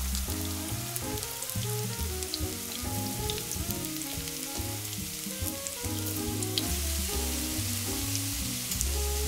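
Starch-coated burdock root strips shallow-frying in oil in a frying pan: a steady sizzle with scattered crackles, growing a little louder about two-thirds of the way through.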